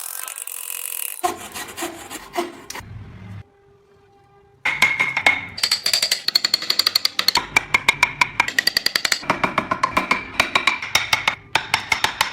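Background music with a fast percussive beat. It drops out briefly about four seconds in and comes back.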